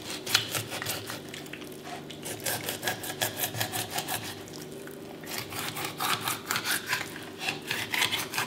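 Fillet knife sawing through a snakehead along its backbone: quick rasping strokes, several a second, as the blade drags over bone. There is a short pause about five seconds in before the strokes resume.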